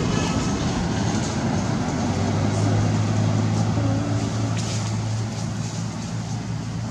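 Low, steady hum of a motor vehicle's engine running, strongest a couple of seconds in and easing off toward the end, with a few light rustles from branches.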